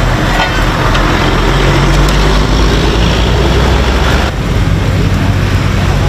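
Engine of a tandem road roller running steadily as it rolls a fresh asphalt patch, with street traffic.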